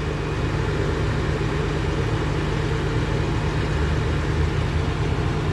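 A steady low mechanical hum, like an idling engine, holding even throughout.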